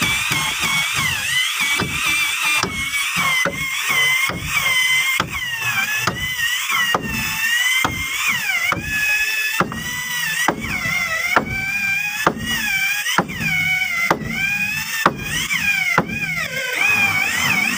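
Corded electric drill boring into a wooden boat frame, its motor whine dipping in pitch as the bit bites and rising again as it frees, over and over, with sharp clicks along the way.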